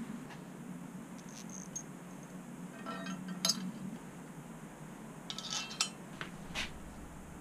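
Light metallic clinks and taps of hand tools and mounting hardware, with a few sharp clicks and a brief rattle just after five seconds, over a low steady hum.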